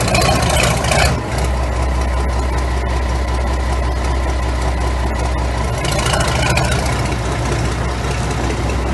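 Nashorn tank destroyer's engine running steadily at low revs as the vehicle crawls forward on its tracks, with a louder rush of noise in about the first second.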